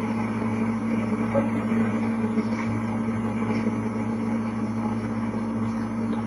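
Steady low electrical hum with a constant hiss underneath, the background noise of the recording with nobody speaking.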